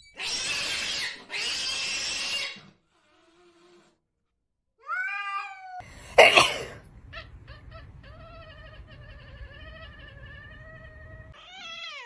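Cat vocalising: two loud hissing bursts, then a falling meow, then a long, wavering, drawn-out yowl lasting about four seconds.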